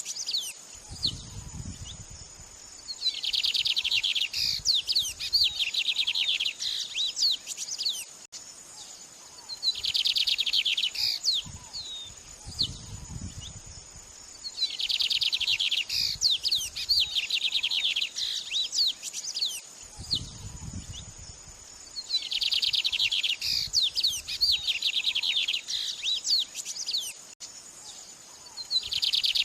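Murai (Copsychus) songbird singing: bursts of rapid trills and sharp chirps every few seconds, over a steady high hiss, with a low rumble now and then.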